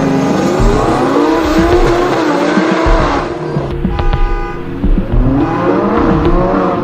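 Sports car engine revving, its pitch sweeping up and down repeatedly, over background music with steady held notes.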